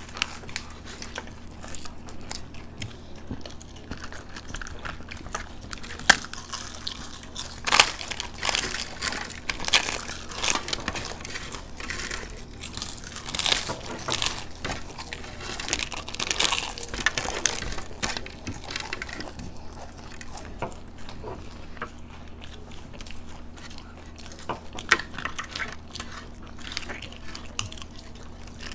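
Several people biting into and chewing crisp, stuffed fuchka (panipuri) shells at close range: irregular crunching and crackling in uneven clusters, thickest in the middle stretch.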